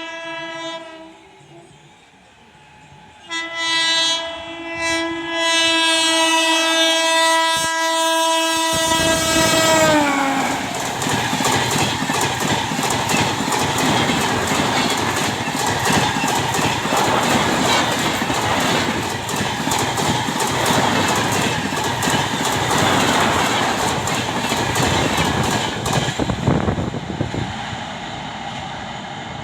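WAP7 electric locomotive's air horn sounding. One blast dies away about a second in, then a long blast runs from about 3 s to 10 s, its pitch dropping as the locomotive passes. Then the express train's coaches rattle past at speed, wheels clicking over the rail joints, fading near the end.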